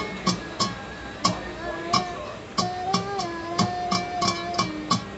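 Ringtone music: a smooth, gliding melody over sharp percussive clicks that repeat two to three times a second.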